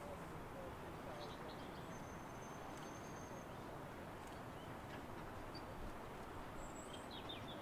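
Small birds chirping faintly over a steady low rush of outdoor background noise.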